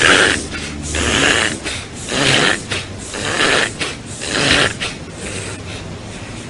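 American pit bull terrier breathing hard through its nose with its muzzle against a tree trunk: five heavy, noisy breaths about one a second, dying down near the end.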